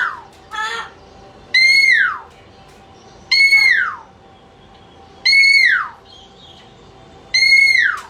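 Parrot giving a loud, repeated whistled call about every two seconds: each call holds a clear note, then slides down in pitch. A shorter, rougher call comes about half a second in.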